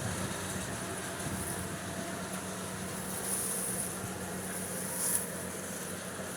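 Rice harvester's engine running steadily with a constant hum and the noise of the working machine, with brief hissy swells about three and five seconds in.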